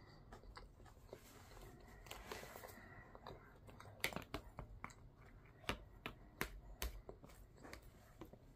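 Quiet chewing, then from about four seconds in a run of sharp clicks and taps as a fork and dishes are handled close to the microphone.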